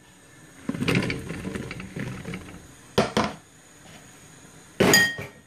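Chopped garden eggs poured into a stainless steel pot, the pieces tumbling and knocking against the metal for about two seconds. Then two sharp metallic knocks, about two seconds apart, the second ringing briefly.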